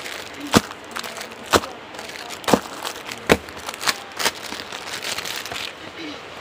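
Plastic-wrapped packets of leggings being slapped down and handled on a shop counter: about six sharp slaps over the first few seconds, with plastic crinkling between them.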